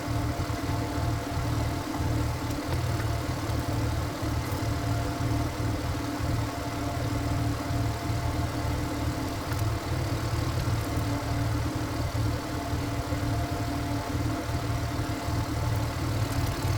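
Single-cylinder diesel engine of a walk-behind power tiller running steadily with a low, even chug.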